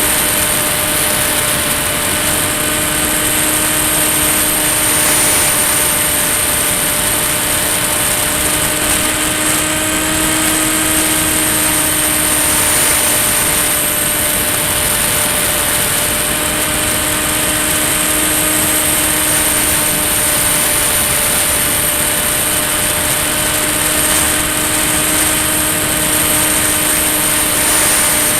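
Brushless electric motor and propeller of a Ranger EX FPV model plane in flight: a steady drone with a high whine above it, the pitch wavering only slightly.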